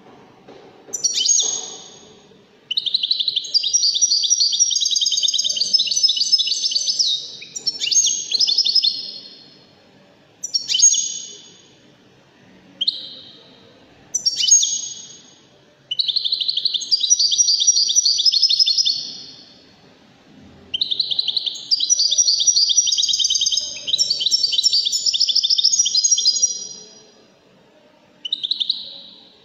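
Caged European goldfinch singing: high, fast twittering song phrases, some short and others running for several seconds, with brief pauses between them.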